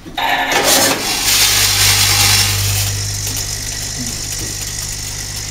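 Granule packing machine's two-scale linear weigher running. Granules rattle and pour off the vibrating feed trays into the weigh hoppers, loudest in the first few seconds and then easing. A steady electric hum from the feeders sets in about a second in and keeps going.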